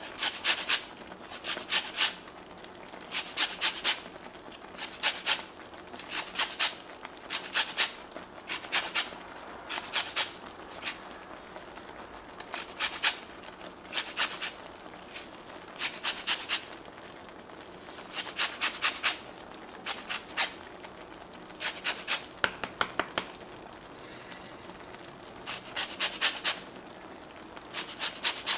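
A lemon being zested on a small flat metal grater, its rind rasping across the blades in quick groups of short scraping strokes, about one group every second or so, with a longer pause about two thirds of the way through.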